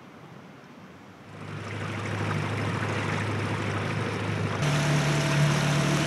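An inflatable boat's outboard motor runs at a steady hum, mixed with the rush of water and wind. It comes up about a second in, and its pitch steps higher about four and a half seconds in.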